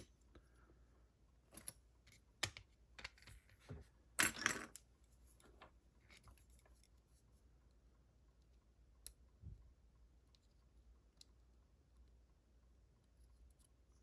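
Small metal clicks and scrapes of tools picking at the parts of a Corbin Master Ring lock cylinder while trying to work out a spring that won't come free. The clicks come in a cluster, loudest about four seconds in, then thin out to a few faint ticks.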